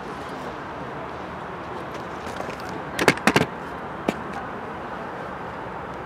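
Steady outdoor background noise, with a quick cluster of sharp clacks about three seconds in and a single clack about a second later.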